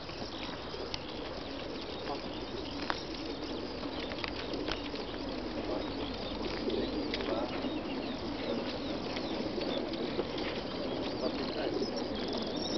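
Mass of racing pigeons crated in a transporter truck: continuous low cooing mixed with wing-flapping and scattered sharp clicks, swelling slightly after the middle.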